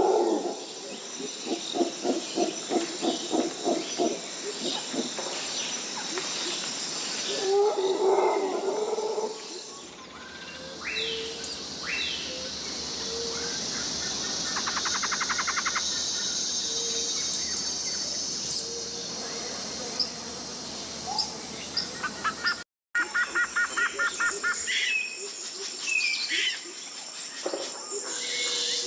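Tropical rainforest ambience: insects droning in a steady high band, with birds chirping and calling over it. In the first few seconds an animal call pulses about three times a second. Near the end the sound drops out briefly and picks up again with a different mix of insects and birds.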